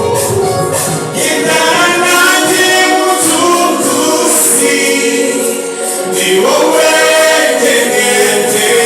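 Church choir singing a gospel song, many voices together at a steady, full level.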